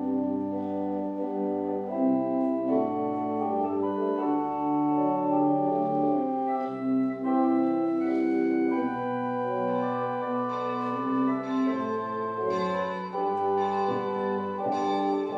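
Organ playing slow, sustained chords, the notes changing every second or so.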